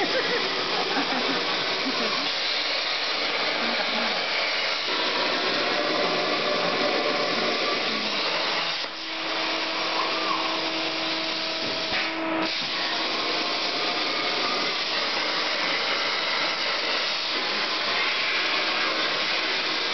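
CNC cutting torch hissing steadily as it cuts a pattern into steel plate. About nine seconds in the hiss briefly dips, and a steady hum sounds along with it for about three seconds.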